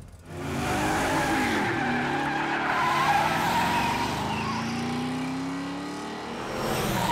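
Cartoon race-car sound effects: car engines revving hard as the cars speed off, with tyre squeal. The noise starts about half a second in, and the engine pitch rises slowly in the middle.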